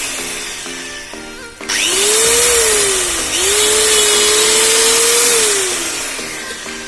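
Bosch GWS 600 angle grinder (670 W, 11,000 rpm no-load) running unloaded. It is winding down as the sound opens, is switched on again about two seconds in and whines up to full speed, dips briefly in the middle, then is switched off and spins down near the end. Background music plays under it throughout.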